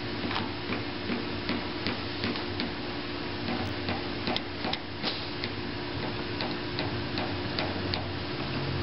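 Paintless-dent-repair mini lifter (glue puller) being squeezed over and over on a glue tab on a car panel, giving a fairly even run of light clicks about two and a half a second, over a steady low hum.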